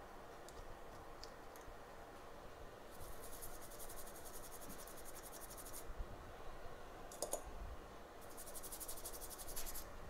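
Small brush scrubbing the freshly cleared IC pads of an iPhone 8 logic board: two spells of rapid, scratchy ticking from the bristles, about three seconds in and again near the end, with a short scratch in between.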